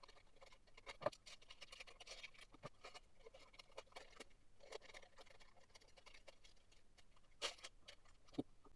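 Scissors cutting around a traced outline in appliqué paper: a faint, irregular run of small snips and paper rustle, with a few sharper clicks about a second in and near the end.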